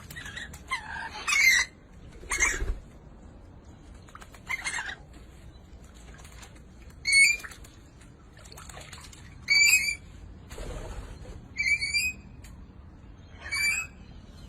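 A bird giving short, repeated calls, about seven of them, one every two to three seconds.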